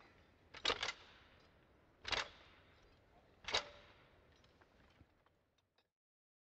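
Sharp impacts from a military precision drill team: three loud strikes about a second and a half apart, the first one doubled, then a few faint clicks. The sound cuts off abruptly near the end.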